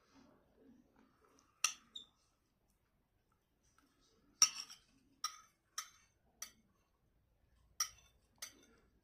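Cutlery clinking on a plate about eight times in quick, uneven taps, with faint chewing sounds between the clinks.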